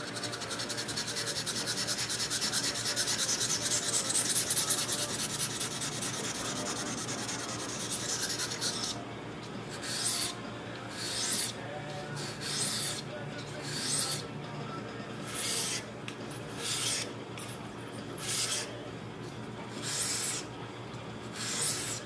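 Steel blade of a Schrade Old Timer folding pocket knife being sharpened on a whetstone. For the first nine seconds or so it is rapid scrubbing strokes. After that come slower single strokes, about one every second and a half.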